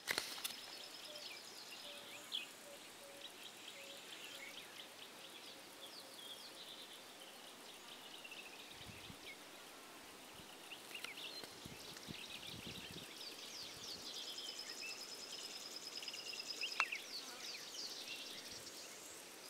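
Bush ambience of wild birds chirping and trilling, with a faint, evenly repeated low call during the first several seconds.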